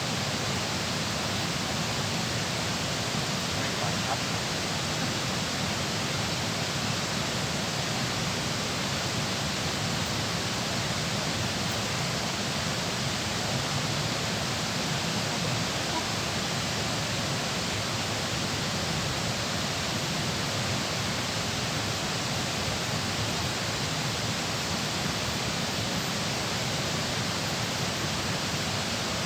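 Steady, unbroken rush of water pouring through a dam.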